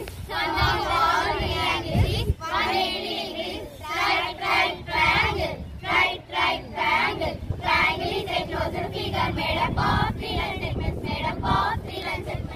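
A group of girls singing together in unison, a children's song about triangles.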